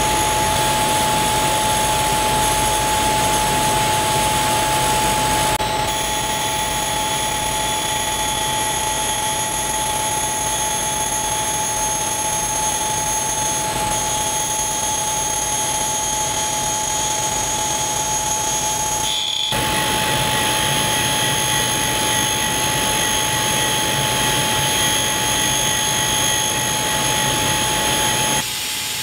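Tool and cutter grinder running with a steady high whine as its wheel cylindrically grinds a steel 3/8 bolt turning in the workhead. The sound dips briefly about 19 seconds in.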